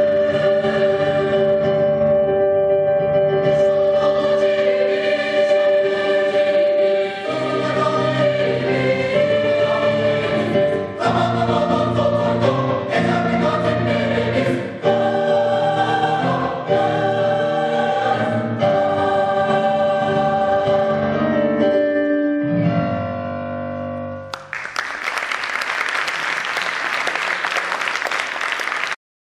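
Mixed choir of men's and women's voices singing in parts, closing the piece with a held chord. About 24 seconds in the singing gives way to audience applause, which cuts off abruptly near the end.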